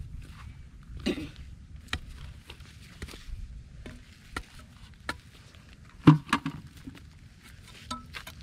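Steel-pipe digging bar striking and prying at hard, dry, cracked clay: irregular sharp knocks, the loudest about six seconds in.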